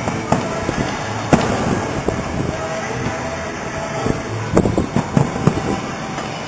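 Aerial fireworks bursting with sharp booms: one early, a strong one after about a second, then a quick cluster of four or five near the end, over a steady background of crowd and street noise.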